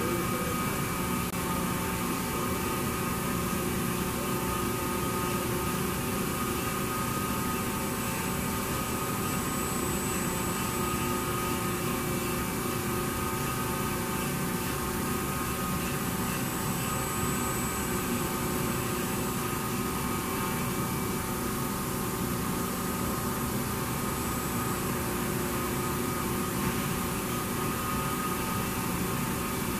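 Mori Seiki NT6600 CNC turning center running with a steady mechanical hum and several held tones, and a faint high whistle that comes and goes.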